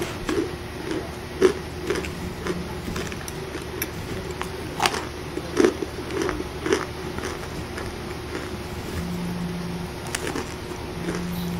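Chunks of cornstarch being bitten and crunched: short, crisp, irregular crunches about a second apart, thinning out in the later part. Underneath runs a steady hiss of heavy rain.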